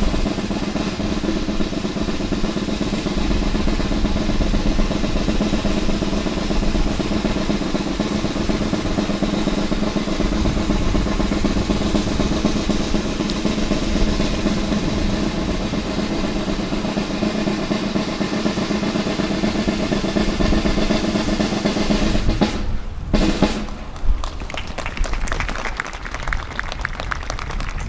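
Ceremonial snare drum roll, held steady for about twenty-two seconds to accompany the unveiling of a monument. It stops abruptly and is followed by a few seconds of clapping.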